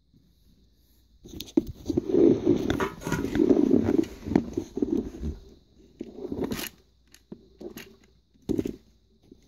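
Handling noise from a Lego Technic pistol being picked up and moved about on a wooden floor: scraping and rustling mixed with clicks of plastic parts. The long, loud stretch comes first, followed by two shorter scrapes.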